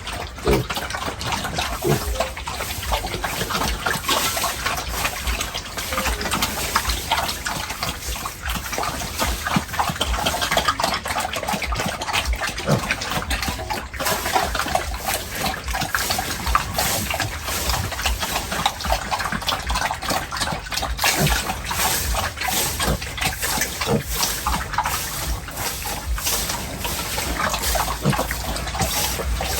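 Pigs in a pen amid continuous splashing and sloshing of water, with many small wet clicks and slaps.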